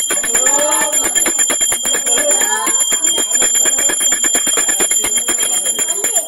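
Brass puja hand bell rung rapidly and continuously, its clapper striking many times a second over a steady high ring, with people's voices underneath.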